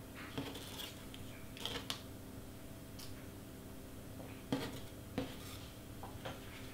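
Scattered soft clicks, taps and rustles of small cut cardstock pieces being picked up and sorted by hand, over a steady low hum.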